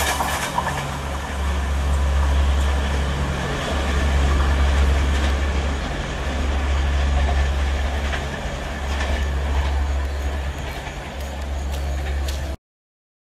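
Express train under electric traction running on the line: a steady low rumble with faint wheel clicks, cutting off suddenly near the end.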